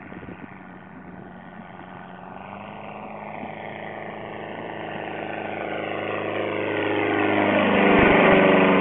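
Affordaplane ultralight's Rotax 277 single-cylinder two-stroke engine and propeller in flight, flying low toward and then over, growing steadily louder to a peak about eight seconds in, its pitch falling as it passes overhead.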